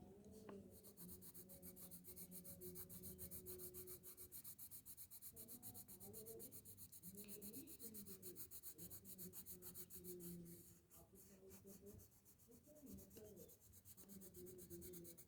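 Faint scratching of a colour pencil shading on paper in quick, even back-and-forth strokes, colouring in with yellow. The strokes thin out and come patchier about eleven seconds in.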